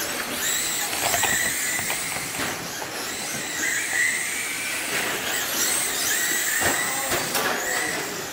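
Radio-controlled dirt oval race cars lapping a clay track, their motors making a high-pitched whine that rises and falls as the cars pass, with a few sharp knocks as they hit the track or each other.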